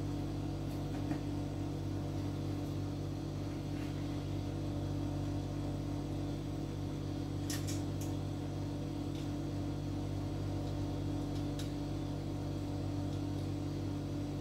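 A steady electrical hum at an even level, with a few faint clicks about halfway through and later as the small plastic case lid and fan are handled.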